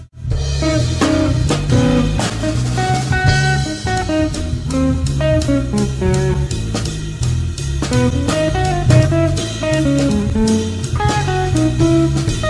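Live jazz trio of electric guitar, electric bass and drum kit in a flowing jazz feel. The guitar plays a single-note melody over a walking bass while the drums and cymbals play triplet paradiddles felt as three against four. The music drops out for a split second at the very start.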